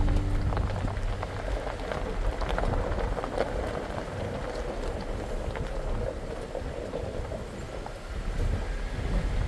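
Jeep driving on a snowy trail: a low rumble with a steady crackle of small ticks from the tyres on the frozen surface.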